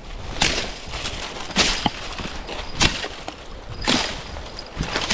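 Footsteps on rough ground, one slow step about every second and a quarter, each a short scuffing crunch.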